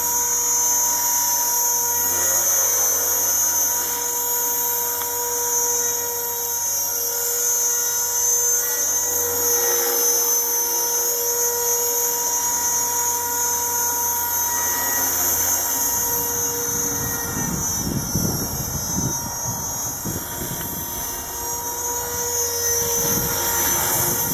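Brushless electric motor and rotor of a Razor 400 RC helicopter running steadily in flight: a high, steady whine. From about two-thirds of the way in, gusty low rumbling buffets the microphone.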